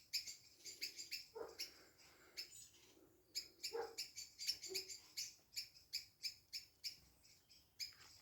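Birds singing: rapid runs of short, high chirps, repeated over and over, thinning out briefly about two seconds in.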